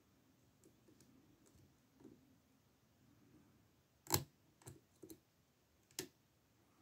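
Quiet sharp clicks of a lock pick and tension tool working in a Master 140 padlock with spool pins: one loud click about four seconds in, two smaller ones just after, and another near the end.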